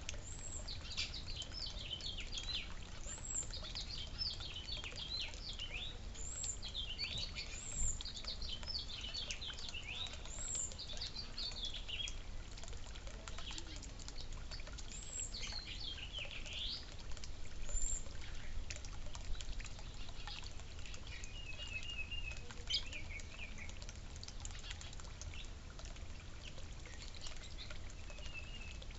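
Small songbirds chirping in quick, high calls, thick at first and thinning out later, over water trickling from a backyard fountain.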